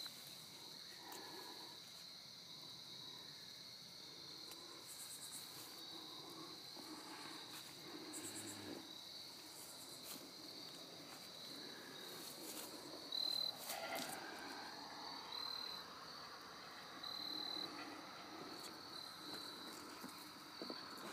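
Crickets chirring steadily in a high, continuous tone, with a few louder short chirps in the second half.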